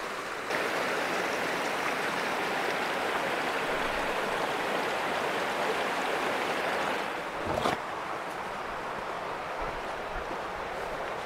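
Mountain creek rushing over rocks, a steady hiss of water that sets in about half a second in and ends with a brief knock a little past the middle. After that, a quieter outdoor hiss with some wind rumble on the microphone.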